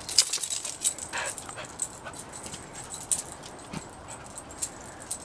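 A dog moving briskly about on concrete, its collar tags jingling in quick, irregular clinks.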